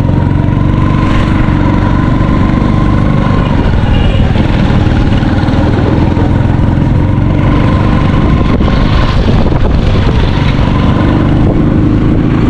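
Motor vehicle engine running steadily, with traffic and road noise.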